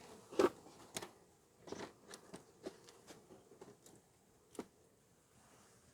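Light, irregular taps and knocks from a wooden package of bees being handled over an open beehive, the loudest about half a second in, fading to occasional ticks after about five seconds.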